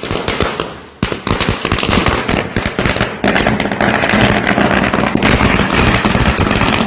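Firecrackers going off in a rapid, unbroken run of sharp cracks that starts suddenly. There is a brief dip about a second in, then the crackling runs on even denser.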